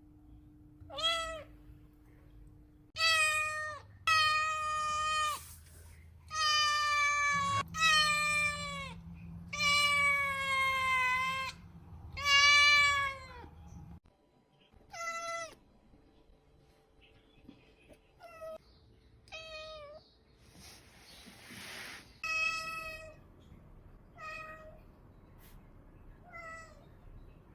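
Domestic cat meowing loudly and repeatedly. Long, drawn-out meows come in the first half, then shorter, fainter ones, with a brief rush of noise a little past the middle.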